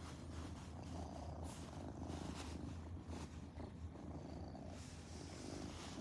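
Domestic cat purring close to the microphone, a steady low rumble.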